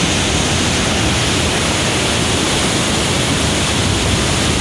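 Tarbela Dam's spillway releasing water: a steady, loud rush of white water pouring down the concrete chute and throwing up spray.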